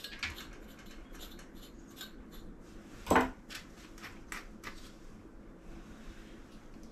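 Dematting tool and brush working through a cavoodle's matted ear fur: a series of short scratchy strokes, with one louder knock about three seconds in.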